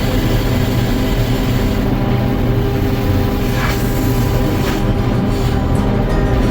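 Sawmill machinery running steadily with an even engine hum and no cutting strokes.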